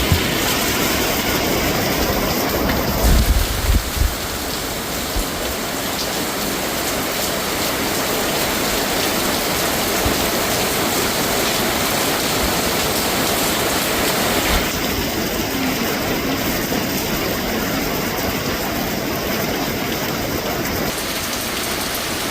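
Steady rain falling on a moving car, mixed with road noise, with a few low thumps about three seconds in.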